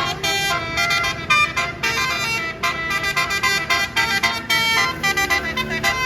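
Basuri musical air horn on a tour bus playing a fast melody, its notes switching several times a second.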